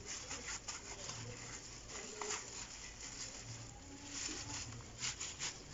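Faint, irregular soft rustling and patting of hands rolling a filled gluten roll over on a work surface.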